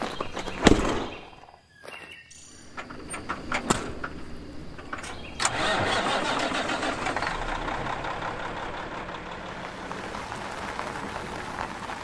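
A semi truck's diesel engine starts about five and a half seconds in and settles into a steady run, after a heavy thump about a second in and some clicks and knocks from the cab.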